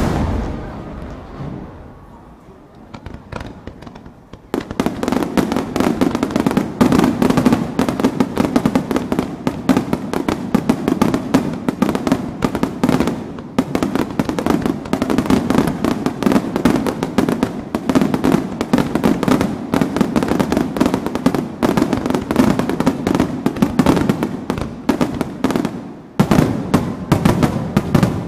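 Fireworks finale barrage. A big bang fades away over the first few seconds, then rapid-fire shell bursts and crackling go off so close together that they merge into one continuous rumble. Near the end there is a brief break before another volley of bangs.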